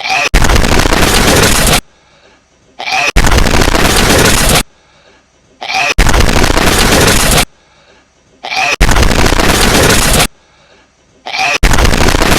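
A hedgehog's sneeze, boosted until it is very loud, repeated in a loop about every three seconds: five loud bursts, each about a second and a half long, with a short quiet gap between.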